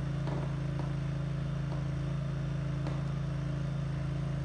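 Small engine of a ride-on golf-course bunker machine running at a steady speed, an even lawnmower-like drone.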